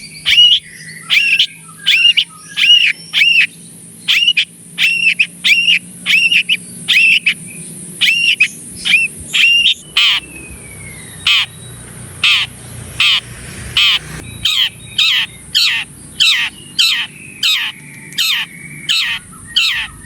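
Long-tailed shrike (cendet) giving a long run of short, loud, repeated calls, about two a second. Around halfway through the notes change from arched calls to downward-sliding ones.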